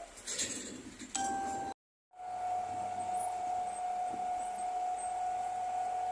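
Komatsu bulldozer running with a steady high whine over its engine noise; the sound cuts out completely for about half a second near two seconds in, then the whine carries on.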